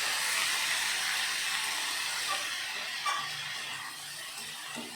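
Chopped vegetables and spices sizzling as they fry in a pan, a steady hiss, with a light knock about three seconds in.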